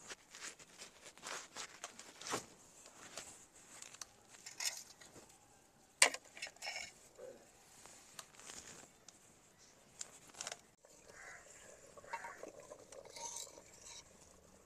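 Scattered light clinks and knocks of cooking at a clay pot over a wood fire, with one sharp knock about six seconds in.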